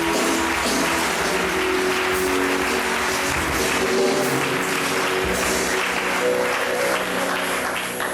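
Audience applauding, with instrumental music playing steadily underneath.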